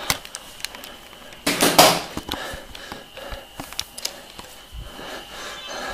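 Handling noise from a camera being fumbled with in the dark: scattered clicks and knocks, with a short loud rustling burst about one and a half seconds in. A faint steady high tone runs through the second half.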